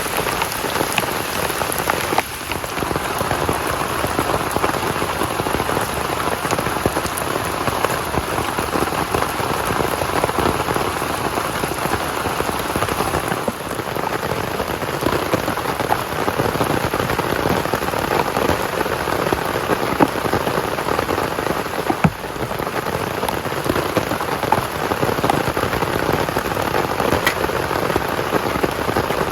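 Heavy rain falling steadily, a dense even patter, with a few sharper single taps.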